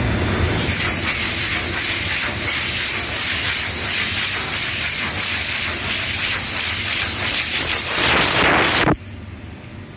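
Automatic powder coating booth hissing: a loud, steady rush of air and sprayed powder that grows brighter shortly before cutting off suddenly about nine seconds in, leaving a low machinery rumble.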